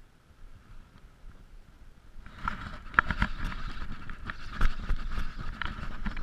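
Muffled rustling and knocking of a jacket sleeve rubbing and bumping against a GoPro in its waterproof housing as the angler moves his arms to work a spinning rod and reel. It starts a little over two seconds in: a dense run of scuffs and clicks with two sharper knocks.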